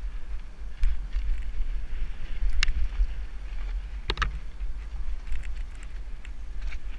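Downhill mountain bike rolling over a rough dirt trail, the wind rumbling on the helmet camera's microphone. Three sharp clacks from the bike jolting over bumps, about one, two and a half and four seconds in.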